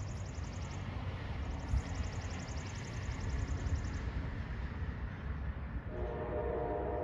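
A locomotive horn on an approaching train starts to sound about six seconds in: several steady notes at once, held as a chord. Under it runs a low rumble.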